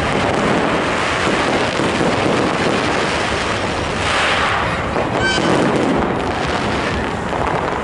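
Fireworks display: a dense, continuous run of bursts and crackling that blurs into one steady rumble. A brief whistle sounds about five seconds in.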